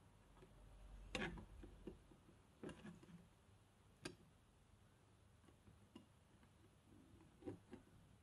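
Faint, sharp clicks from a spring-loaded desoldering pump (solder sucker) being handled and worked over a circuit board to clear a solder bridge. There are a few separate clicks, the loudest about a second in.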